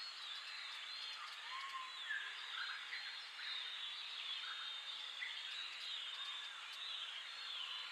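A dense chorus of small birds calling at once: many overlapping short chirps and gliding whistles over a steady hiss of natural ambience.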